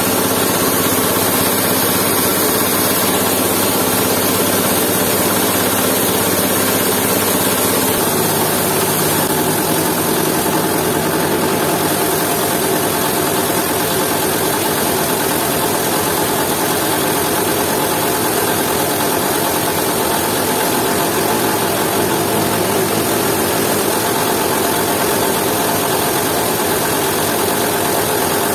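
Jiangdong 8 hp single-cylinder diesel engine running steadily, belt-driving a coffee huller through dry coffee beans. The tone of the running shifts about eight seconds in.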